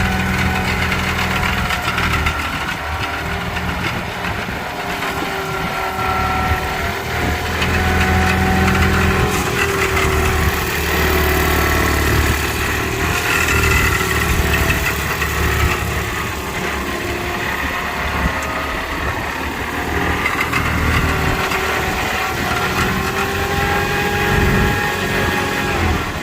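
HydraMac 6C skid steer running: a steady low engine note with higher whining tones that shift up and down in pitch as it works, sliding down near the end.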